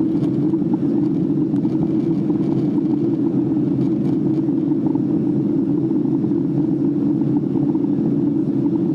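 Boeing 767 cabin noise in flight: engines and rushing air heard from inside the passenger cabin as a steady low rumble that does not change.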